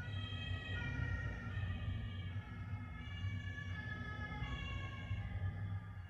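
Two-tone emergency-vehicle siren passing outside, stepping back and forth between a higher and a lower pitch, over a low rumble.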